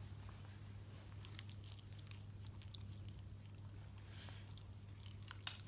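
Faint scattered clicks and small ticks, one slightly louder near the end, over a steady low hum.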